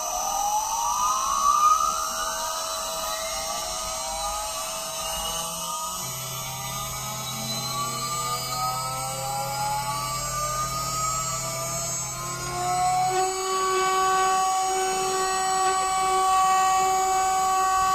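Small CNC engraving machine's spindle motor spinning up as carving starts. Its whine rises over about the first twelve seconds, then settles into a steady whine. A low hum joins in for several seconds in the middle.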